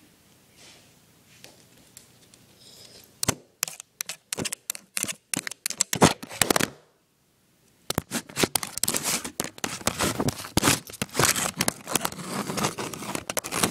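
Scratching and rustling rubbed right against the microphone: a run of short, loud scratchy strokes about three seconds in, a brief dropout, then dense continuous scratching and crinkling.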